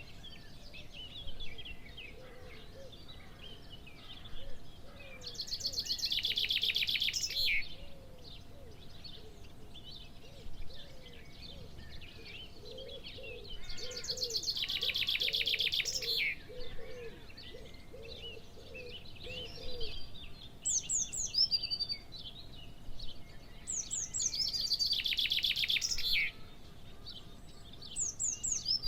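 Birds singing: steady high twittering, broken three times by a loud, very rapid trill lasting a couple of seconds each time. Through the first two-thirds there is also a run of short, low, repeated notes.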